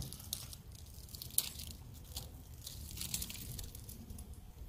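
Quiet close rustling and crackling with scattered clicks, one sharper click about a second and a half in, over a low wind rumble on the microphone.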